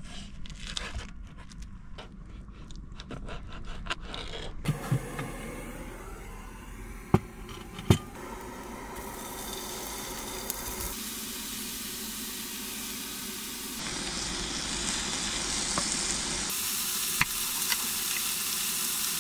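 Knife strokes cutting raw chicken on a plastic cutting board, a quick run of short sounds. Then chicken pieces sizzle as they fry in a small Jetboil pan on a camp stove, the hiss growing steadier, with two sharp clicks about seven and eight seconds in.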